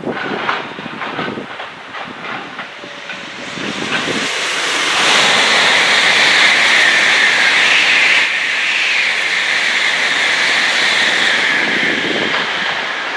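JR Freight EF66 electric locomotive and its freight wagons passing through at speed: a rushing, hissing rail noise swells about four seconds in and stays loud, with a high whine held above it.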